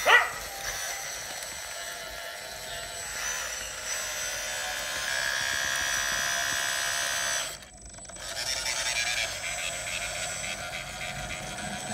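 Hydraulic radio-controlled CAT D8 bulldozer model running: a steady electric whine from its drive motors and hydraulic pump as it pushes soil, dropping out for a moment about two-thirds of the way through, then picking up again.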